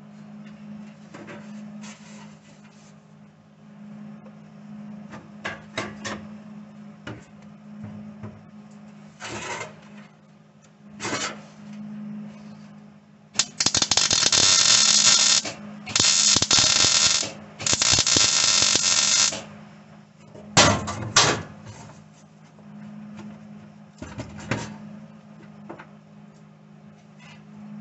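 Arc welding in three short bursts of steady crackle, each about two seconds long, stitch-welding sheet steel floor panels. Before and after come scattered light knocks and clicks of metal being handled, over a steady low hum.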